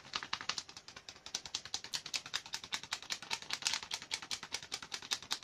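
A spice packet of ground pepper mix being shaken, giving a rapid, even rattle of dry ticks, about eight to ten a second, as the spice pours out.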